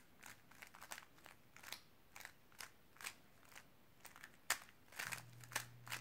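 Faint clicking of a GAN 3x3 speedcube's layers being turned in a quick run of moves, the parity algorithm R U' R' U' R U R D R' U' R D' R' U2 R' U'. A faint low hum joins about five seconds in.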